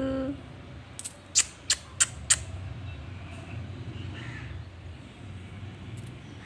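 Five sharp clicks in quick succession, about three a second, starting about a second in, over a low steady background hum.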